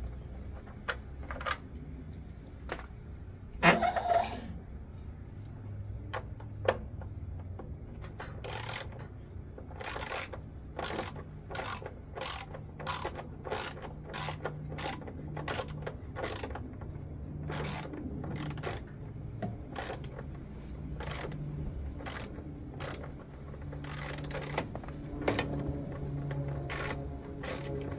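Hand tool working the screws on a washing machine drum: a few scattered knocks, then from about eight seconds in a steady run of short mechanical clicks, roughly one to two a second, over a low steady hum.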